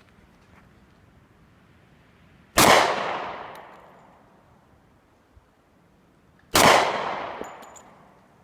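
Two .45 ACP pistol shots from a Glock 30 Gen4, about four seconds apart, each followed by a long echoing decay.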